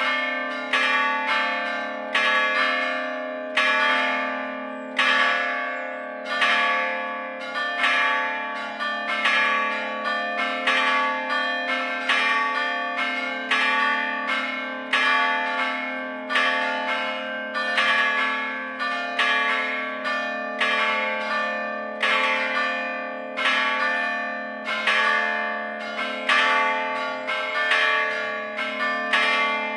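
Full peal of four church bells hanging still in an open concrete campanile, struck rather than swung. The strikes come one or two a second in an uneven pattern, each leaving a long ringing hum that overlaps the next.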